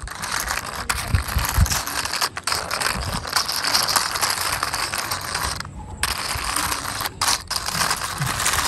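The small wheels of a toy cow on four wheels rolling and rattling along a wall as it is pushed by hand: a continuous grinding rattle, briefly pausing about six seconds in and twice around seven seconds in.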